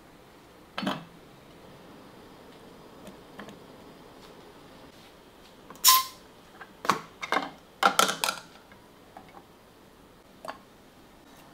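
Kitchenware being handled on a counter: scattered clinks and knocks, the loudest a clink with a short ring about six seconds in, followed by a quick cluster of knocks.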